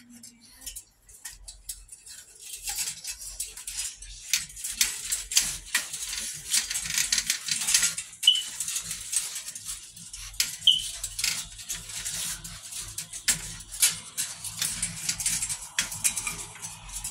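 Puppies scrambling in a wire crate: a rapid, irregular clatter of claws and rattling, with two short high squeaks in the middle.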